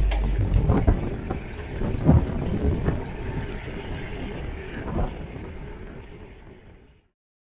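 Wind buffeting the camera microphone over the rumble of a gravel bike rolling on rough asphalt, with a few sharp knocks from the bike jolting over bumps. It fades out steadily and ends about seven seconds in.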